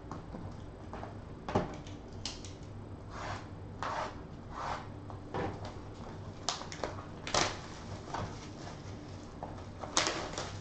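Hands handling and tearing open a cardboard Panini Contenders Draft Picks trading-card box: an irregular run of short rustles, scrapes and knocks, loudest about a second and a half in, just past seven seconds and near the end.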